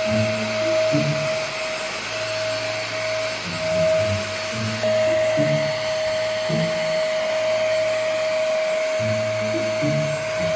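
Stick vacuum cleaner running with a steady high whine, over background music with a stepping bass line.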